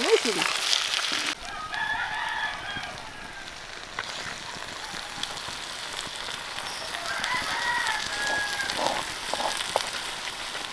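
A rooster crowing twice, once about a second and a half in and again about seven seconds in, over a steady hiss.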